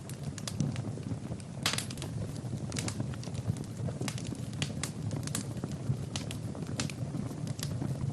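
Fire burning in a fireplace: irregular sharp crackles and pops over a low, steady rumble of flames. The loudest pop comes about two seconds in.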